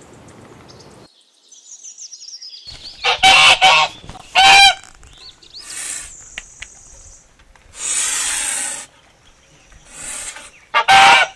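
Geese honking: loud, nasal honks between about three and four and a half seconds in and again near the end, with short hissing rushes of noise in between.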